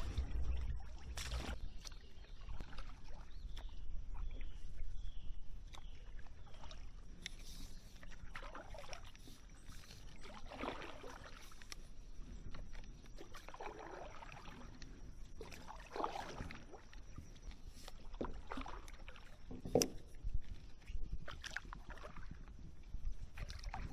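Paddle strokes in creek water: a paddle dipping and splashing at irregular intervals, with water dripping off the blade.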